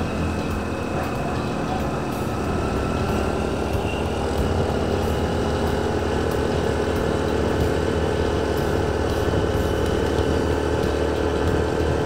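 Motorcycle engine running steadily at cruising speed, heard from the rider's seat, with a steady rush of wind and road noise.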